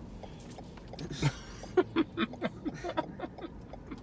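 Short, broken vocal sounds inside a car cabin: a breathy burst about a second in, then a string of brief voiced blips and clicks, more like chuckling or mouth noises than words.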